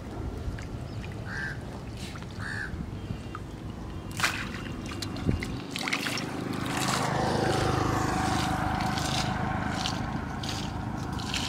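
Water splashing as a hand sweeps through shallow pond water. From about seven seconds in, a louder steady humming sound with a motor-like pitch rises and holds.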